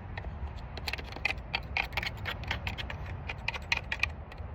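Irregular light clicks and scrapes of a disassembled Husqvarna chainsaw's parts being cleaned and handled by hand.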